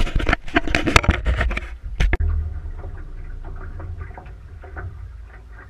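Rapid scraping, knocking and rubbing close to the action camera for about two seconds, like handling or bodies brushing against its housing. After that comes a steady low rumble with faint ticks.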